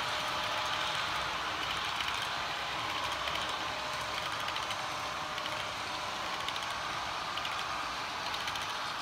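HO scale model freight cars rolling past on the track: a steady rolling hiss of small metal wheels on rail, with faint rapid clicking.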